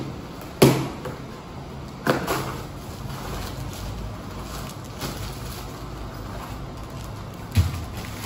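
Packaging being handled while unboxing: faint rustling of plastic and paper wrapping, with three sharp knocks as the wrapped items are handled, one near the start, one about two seconds in and a duller thump near the end.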